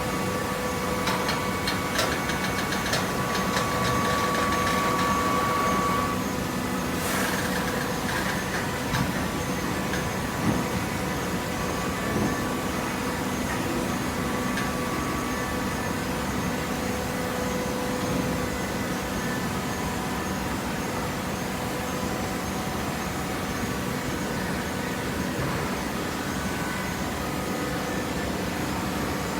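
Hydraulic waste paper baler running with a steady machine hum. There are a few clicks in the first seconds and a brief rushing noise about seven seconds in.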